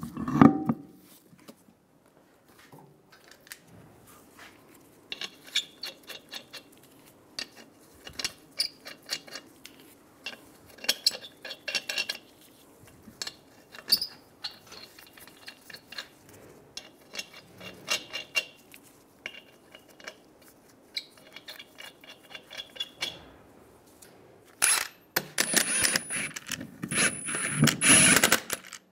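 Steel lug nuts spun onto the wheel studs by hand, several short runs of quick metallic clicking and rattling. About 25 s in, a cordless brushless impact wrench runs the nuts down in a few short loud bursts with a high whine.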